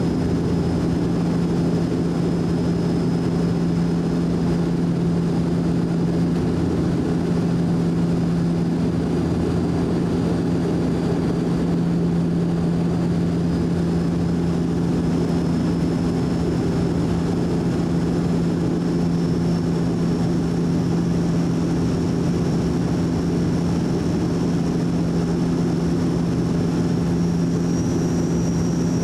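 Cabin noise of a De Havilland Canada Dash 8-400 turboprop in flight, heard inside the cabin beside the propeller: a steady drone from its engines and propellers. A faint high whine edges up in pitch near the end.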